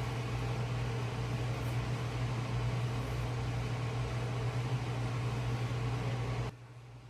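Steady mechanical hum: a constant low drone with a hiss over it, with no change in pitch, that cuts off suddenly near the end.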